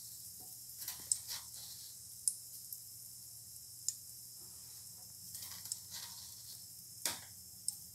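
Mustard seeds spluttering in hot oil and ghee in a pressure cooker: a steady high sizzle with irregular sharp pops as the seeds crackle. The crackling is the sign that the oil is hot enough for the tempering (tadka).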